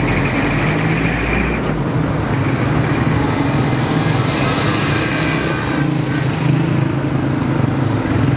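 Street traffic, with car and motorcycle engines running close by in a steady, loud hum.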